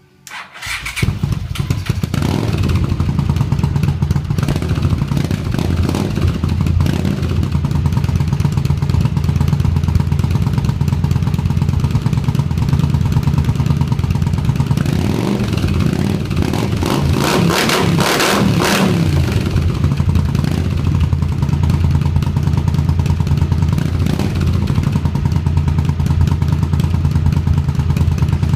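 Honda CX500 liquid-cooled V-twin motorcycle engine starting up through short cone mufflers, then running steadily with a few brief revs, the biggest a little past halfway. The owner says it stutters a bit because the carburettors are not yet tuned.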